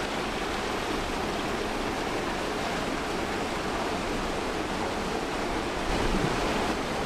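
Water from a swimming pool's fountain jets and wall spouts splashing steadily into the pool.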